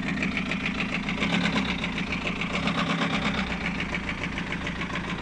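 BMW E46 320d's 2.0-litre four-cylinder turbodiesel idling steadily, with a fast even ticking over a low hum. This is the engine its owner reports for knocking and squeaking.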